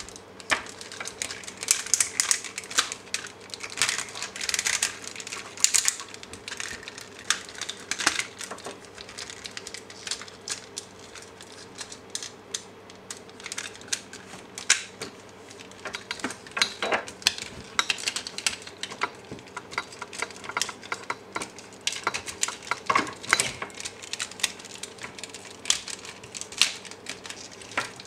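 Plastic parts of a large transforming robot toy, an enlarged knockoff of the MPM-03 Bumblebee figure, being handled and folded: an irregular run of clicks, clacks and light rattles as panels and joints are moved and pressed into place.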